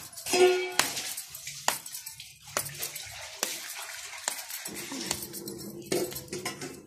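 Hands rubbed and clapped together to clear off sticky paratha dough, giving a series of sharp slaps about once a second over a low background hum. A short pitched call sounds near the start.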